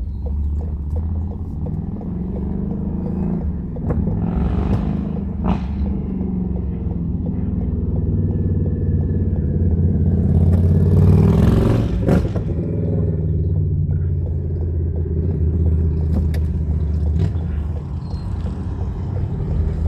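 Car driving: a steady low engine and road drone whose pitch drifts up and down, with a louder rushing swell around the middle.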